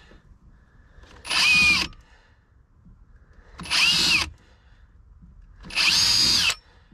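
Power drill with a 3 mm metal bit boring a series of small holes for a makeshift strum box on a bilge pump inlet: three short bursts about two seconds apart, the motor whine rising and falling with each.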